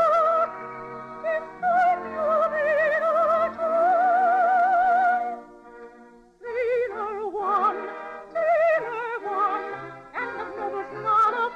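Operatic soprano singing a song with orchestra, holding long high notes with a wide vibrato, with a short break about six seconds in before the melody resumes.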